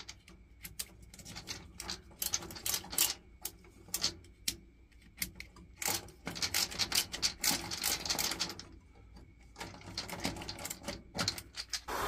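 Bursts of rapid, irregular metallic clicking and tapping from screwdriver work at an old Baxi boiler's gas valve and thermocouple connection, coming in four runs with short pauses between them.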